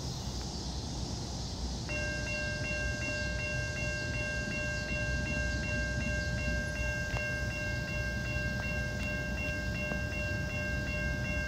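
Railroad grade-crossing warning bell starting about two seconds in and ringing steadily, a rapid repeated ding about three times a second, as the crossing signals activate for an approaching train.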